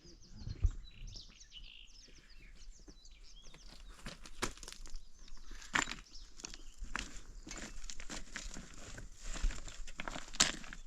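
Small birds chirping in the first few seconds, then a run of irregular crackles and rustles, loudest about six and ten seconds in.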